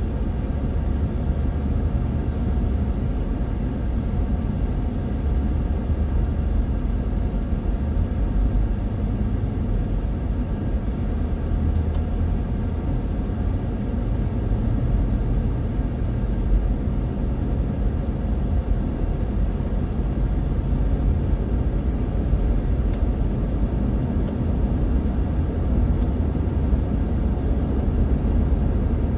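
Steady low rumble of a car being driven at cruising speed, heard from inside the cabin: engine and tyre noise on the road.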